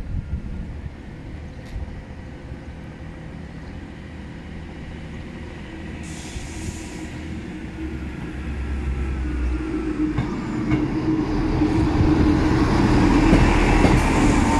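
Class 158 diesel multiple unit approaching and running past over a level crossing. Its diesel engine note and wheel rumble grow steadily louder through the second half, loudest as the coaches pass.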